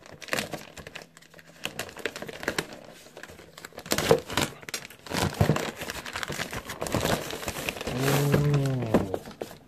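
Plastic packaging crinkling and tearing, in irregular crackles, as a boxed toy quadcopter is pulled out of its shipping bag. A short hum of voice comes near the end.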